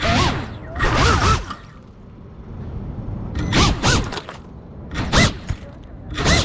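FPV drone's motors and propellers surging in short throttle bursts, about five times, each a whine that sweeps up in pitch and falls back, over a steady rushing of air.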